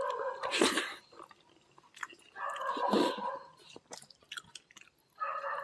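Close-up chewing and mouth sounds of a man eating a handful of rice and pork curry. It comes in two spells, one in the first second and a longer one around the middle.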